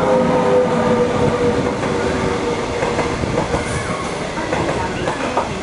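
A non-stop passenger through-train runs past at speed, its steel wheels rumbling on the rails. A steady tone sags slightly in pitch over the first few seconds.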